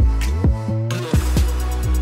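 Background music with a steady beat: deep, falling-pitch drum hits over sustained bass notes.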